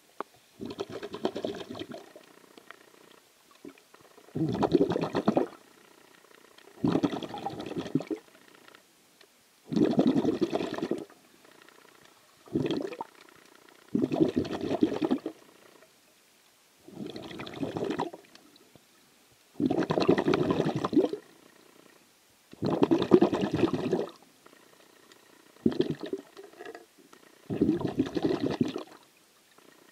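A snorkeler breathing through a snorkel: a steady rhythm of breaths, each about a second long, coming roughly every two to three seconds.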